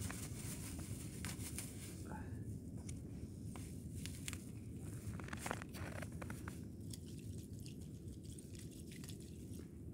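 Steady low wind rumble on the microphone, with scattered soft crunches and clicks from snow underfoot and a plastic bottle being handled.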